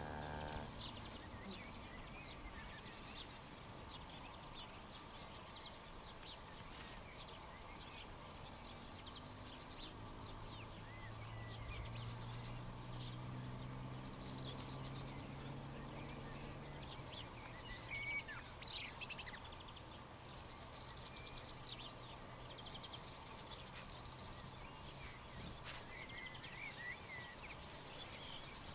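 Faint outdoor ambience with scattered chirps and short trills of songbirds. A low hum comes in about ten seconds in and fades out a few seconds later.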